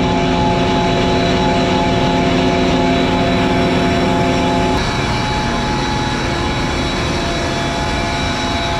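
A John Deere combine's diesel engine running steadily, with a constant hum and whine over its rumble. Some of the lower tones drop away about five seconds in.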